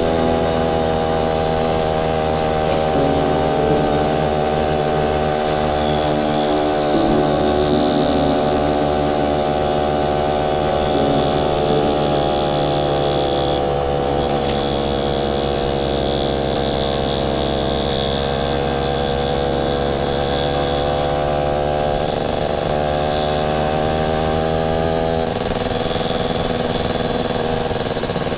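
Motorcycle engine running at fairly steady revs while riding. Its note sags a little and picks up again in the second half.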